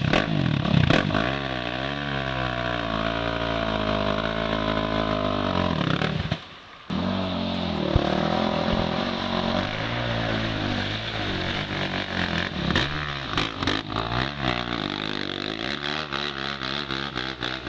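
Yamaha YFZ450 sport quad's single-cylinder four-stroke engine revving hard, its pitch swinging up and down as the rider works the throttle climbing a muddy slope. It cuts out briefly about six seconds in, and scattered clicks and knocks come through in the second half.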